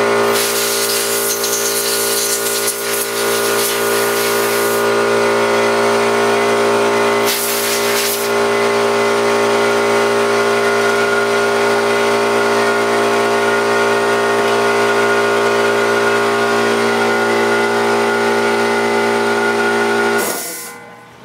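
A motor-driven spray cleaner runs steadily with a hissing spray, washing dirt and mud off a gas-powered 1/5-scale RC buggy; the spray is strongest early on and again briefly near 7 seconds in. The machine cuts off suddenly just before the end.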